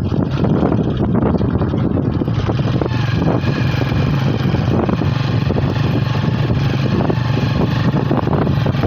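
Motorcycle engine running steadily under way.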